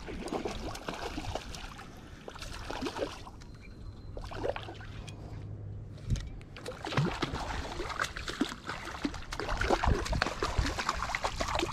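A small hooked rainbow trout splashing at the surface of a creek as it is reeled in and scooped into a landing net. Water sloshes and trickles with scattered sharp splashes, busiest in the second half.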